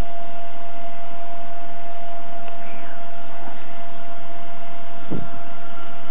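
Steady hiss and electrical hum with one constant tone, and a single brief low thump about five seconds in.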